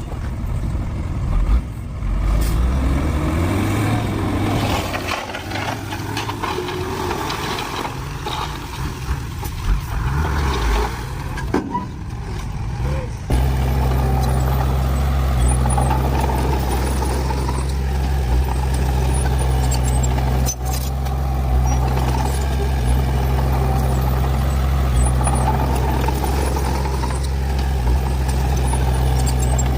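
Heavy diesel construction machinery running, the engine pitch rising and falling for the first half. About 13 seconds in, the sound changes abruptly to a steady low engine drone.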